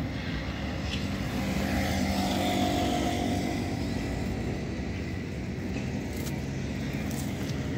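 A motor vehicle's engine running, a steady rumble that swells a little about two to three seconds in, as if passing by.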